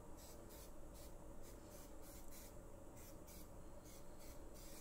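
Faint, rhythmic rubbing strokes, about two to three a second, as a hand greases the inside of a square metal baking pan.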